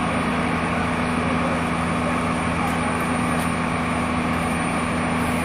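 A vehicle engine idling steadily: a constant low hum with an even rush of noise over it, holding the same pitch throughout.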